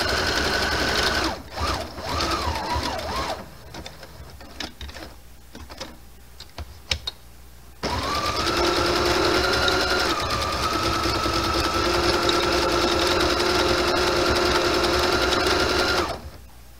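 Brother sewing machine stitching with a steady whine that stops about a second in, then runs briefly and unevenly. After a quieter pause with a few light clicks and taps, it runs again steadily for about eight seconds and stops just before the end.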